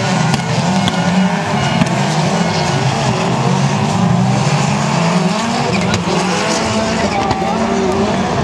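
Autocross race cars running hard on a dirt track, engines revving with their pitch rising and falling as they accelerate and lift.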